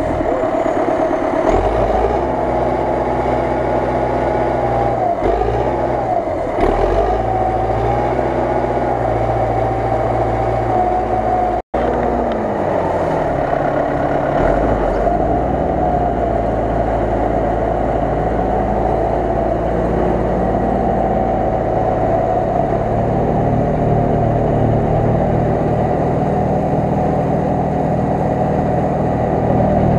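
MTZ Belarus 892 tractor's four-cylinder diesel engine running under load in deep mud, its pitch rising and falling several times as the throttle changes. The sound cuts out for an instant about twelve seconds in.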